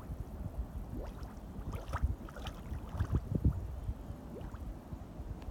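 Mud volcano vent erupting: gas bubbling up through thick grey mud in irregular gurgles and low plops, the biggest about two seconds in and again around three and a half seconds.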